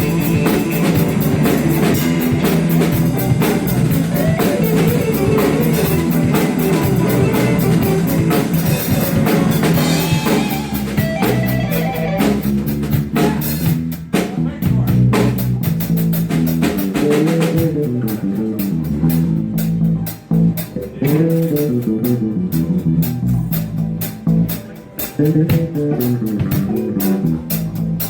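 A live blues band plays an instrumental passage on guitar, bass guitar and drum kit. In the second half the playing thins out, with short breaks between the guitar and bass lines.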